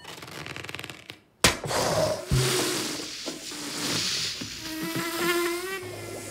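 Cartoon sound effects for a darting pufferfish: a fast buzzing flutter, then a sudden loud hit about a second and a half in, followed by whooshing noise, a second knock, and a squeaky tone rising in pitch near the end.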